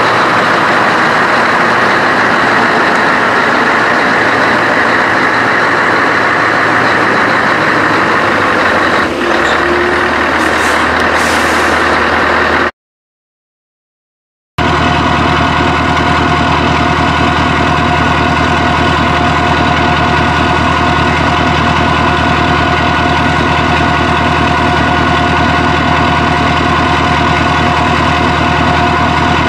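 Scania R500 V8 truck engine running through an open, straight exhaust pipe: first as the truck moves slowly, then, after a short silent break about thirteen seconds in, idling steadily with an even, deep note.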